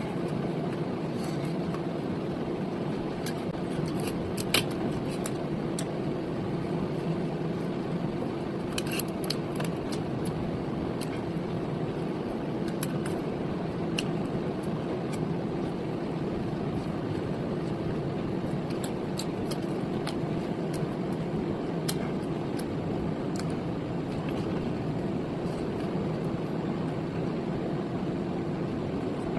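A steady mechanical hum with a low drone, with scattered small clicks and taps from eating.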